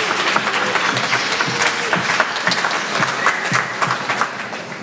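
Audience applauding as a performer is welcomed onto the stage, the clapping thinning out near the end.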